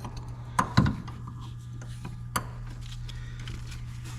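A wrench clinking against metal line fittings: a few sharp knocks, the loudest about a second in, over a steady low hum.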